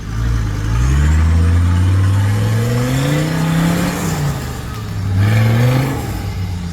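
Mercedes-Benz G-Class engine revving hard while working through deep mud, its pitch climbing steadily for about four seconds. It then eases off and climbs again in a second, shorter rev about five seconds in.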